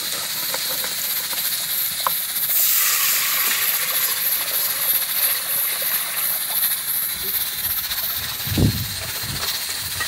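Chopped garlic sizzling in hot fat in an aluminium saucepan, then water poured in from a basin about two and a half seconds in, hissing and steaming as it hits the hot pan. A dull knock near the end.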